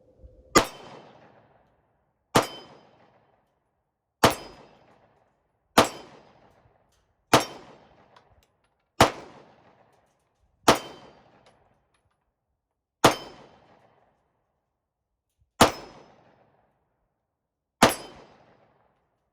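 Glock 48 9mm pistol fired ten times in slow, deliberate succession, one shot every two seconds or so, each crack followed by a brief metallic ring from a steel target being hit.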